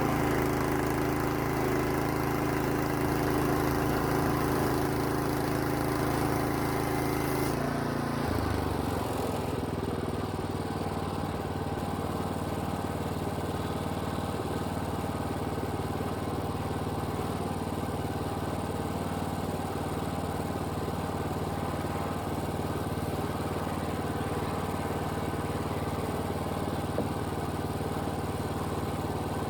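Small engine of a band sawmill running steadily, then dropping to a lower, steady idle about eight seconds in.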